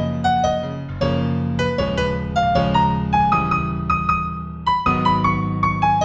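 Solo piano playing a slow new-age piece in F major: a melody of single struck notes over held low chords.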